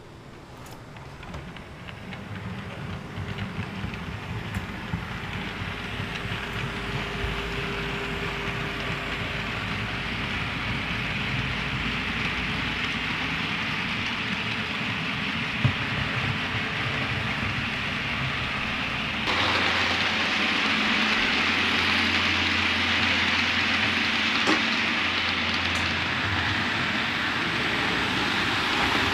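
OO gauge model container freight train running past: the wheels of the locomotive and wagons rattle and hiss steadily along the model track. The sound grows louder over the first few seconds as the train approaches, then jumps up again about two-thirds of the way through.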